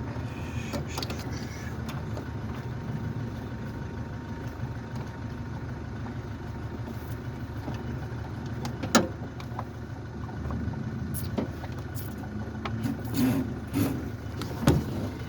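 Steady low rumble of a vehicle engine idling, with a few sharp clicks and knocks of parts being handled, the loudest about nine seconds in and several more near the end.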